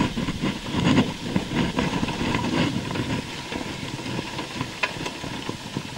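Quad bike engine running on a test run, heard under a steady hiss with an uneven low rumble.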